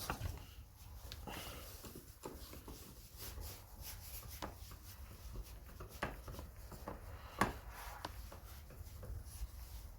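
Chainsaw parts being handled and fitted by hand: scattered light clicks, taps and rubbing of plastic and metal parts, with one sharper knock about seven seconds in.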